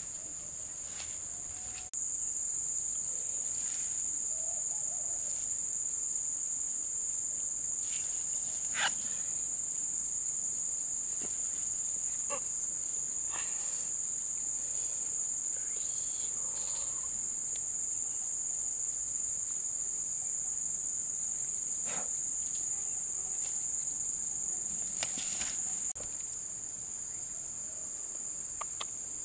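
Steady high-pitched drone of insects in the lakeside vegetation, with a few scattered taps and knocks.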